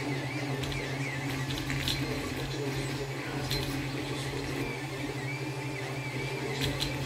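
Creality Ender-3 3D printer printing: a steady hum of its cooling fans under a high stepper-motor whine that rises and falls in pitch in waves as the print head moves, with a few light ticks.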